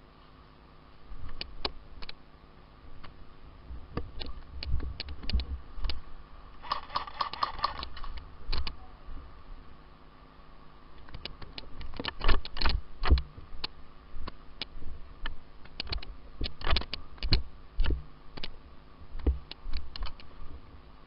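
Airsoft guns firing: irregular sharp clicks and snaps with low thumps in between, and one rapid burst of clicks lasting about a second, about seven seconds in.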